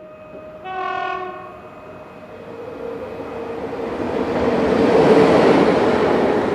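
A train horn sounds one short blast about a second in, then a train approaches and passes, its rushing wheel noise building to a peak about five seconds in.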